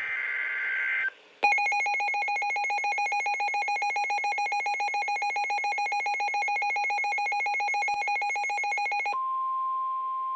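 NOAA weather radio alert for a winter storm warning. It opens with the end of the screeching digital SAME header burst, which stops about a second in. Next comes the receiver's loud, rapidly pulsing alarm beep for about seven seconds. Near the end this switches to the steady single 1050 Hz warning tone that precedes the voice message.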